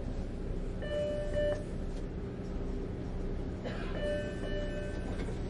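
Passenger train running, a steady low rumble of wheels on track, with two brief high ringing tones about a second in and again near four seconds.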